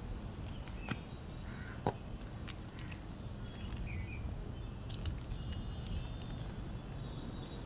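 Gym chalk crunching in a few sharp, separate cracks, the loudest about two seconds in, over a steady low rumble. Faint bird chirps in the background.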